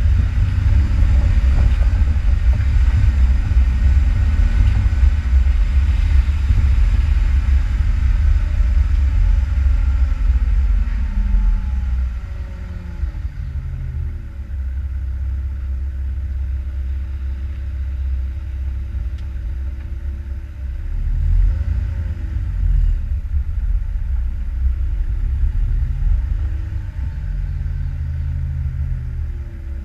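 Off-road vehicle engine running with a heavy low rumble. About twelve seconds in, the engine note falls and the rumble eases to a steadier, lower drone; the engine rises briefly twice later on.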